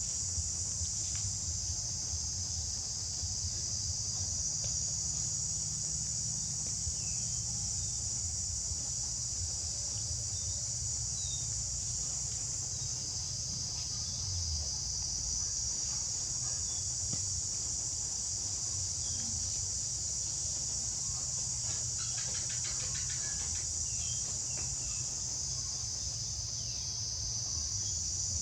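A continuous high-pitched insect chorus that swells and fades slowly, over a steady low rumble, with a few faint short chirps.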